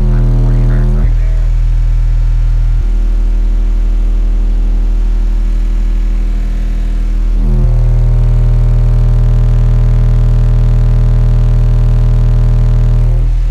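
Two 12-inch Untouchable Sounds King Series car-audio subwoofers playing loud, steady low bass test tones in the 20–40 Hz range, buzzing with strong overtones. The note changes about a second in, again near three seconds, and once more about seven and a half seconds in.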